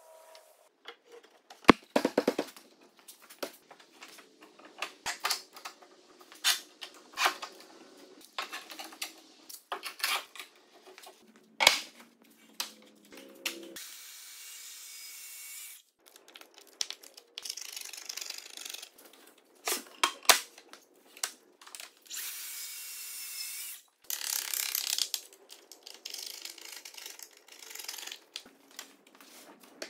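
Workshop tool sounds: a run of sharp knocks and clicks through the first half, then a Festool track saw cutting along its guide rail in several runs of a few seconds each, a steady noise that starts and stops abruptly.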